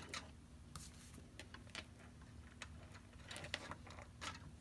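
Faint, scattered taps and light rustles of hands handling a stack of hole-punched paper and a metal wire binding coil on a tabletop.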